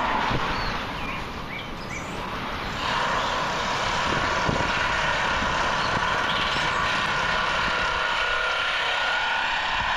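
Steady rushing outdoor background noise with a faint steady hum, easing for a couple of seconds about a second in, and birds chirping a few times early on and again about two-thirds of the way through.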